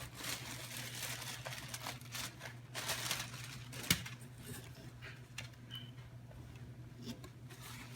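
Packaging rustling and crinkling as a new sweater is unwrapped and handled, with a sharp click about four seconds in and lighter handling after it. A steady low hum runs underneath.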